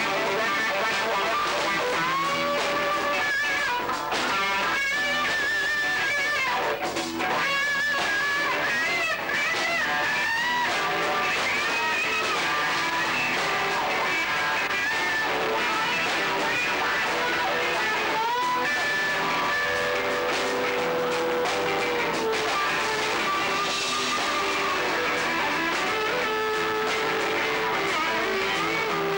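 Live rock band playing, led by electric guitars, including a semi-hollow-body guitar; a melody line of bent and held notes runs over the strummed chords.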